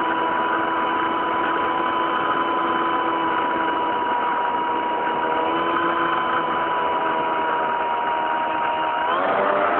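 Motor of a radio-controlled model Cessna 182, heard from a camera carried on the plane in flight: a steady, high-pitched drone over a rush of air. About nine seconds in the pitch rises sharply as the motor speeds up.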